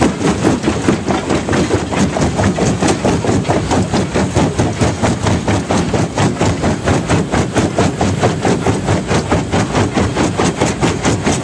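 Fintec 1107 jaw crusher crushing limestone: a fast, steady rhythm of knocks, a few strokes a second, as the swinging jaw works the rock, over the running engine of the machine.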